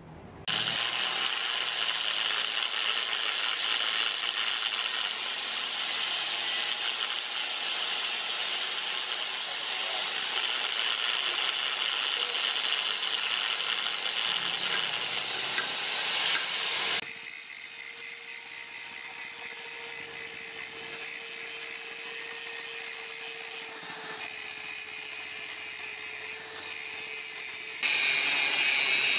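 A power tool working steel, a harsh, steady rasp. For about sixteen seconds it is loud, then it drops suddenly to a quieter run with a steady hum, and it comes back loud shortly before the end.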